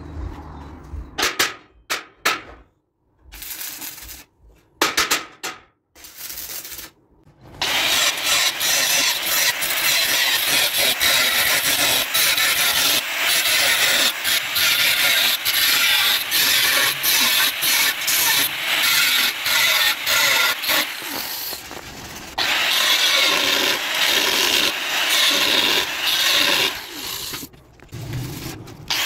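Angle grinder with a thin cut-off disc cutting slots into the edge of a steel blade: a steady, loud grinding that runs without a break from about eight seconds in, changing tone slightly partway through and dropping briefly near the end. Before it come a few short, choppy bursts of sound with silent gaps between them.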